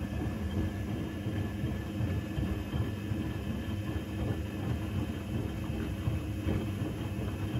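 Electrolux EWC1050 washing machine tumbling towels in its first rinse: a steady motor hum under a dense, uneven churning of water and wet laundry in the drum.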